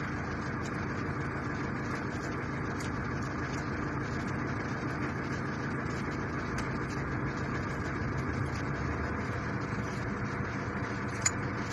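A vehicle engine idling steadily, an even hum that neither rises nor falls.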